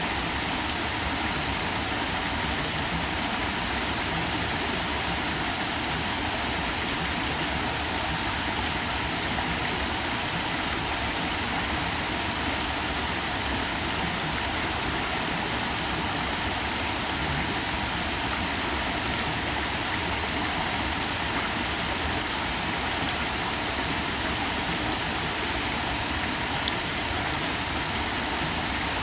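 Small waterfall tumbling over a rock ledge into a shallow pool: a steady, unbroken rush of falling and splashing water.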